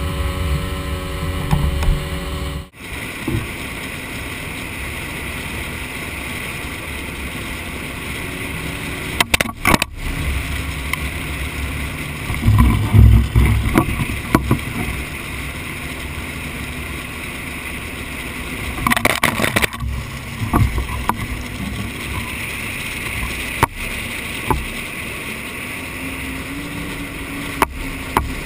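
A boat motor drones steadily for the first few seconds. Then small waves lap and splash against the hull of a flat-bottom boat, with a few sharp knocks and a louder low surge midway.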